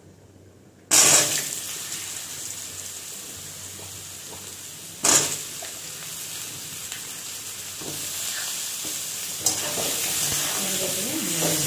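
Cut potato and pointed gourd (potol) pieces dropped into hot oil in a wok, hitting with a sudden loud sizzle about a second in. It flares again briefly about five seconds in, then settles into a steady frying sizzle on a low flame.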